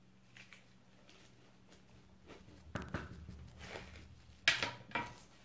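A knife and gloved hands working a cut jackfruit in a bowl: faint scraping and rustling with a few short taps. The loudest is a sharp knock about four and a half seconds in.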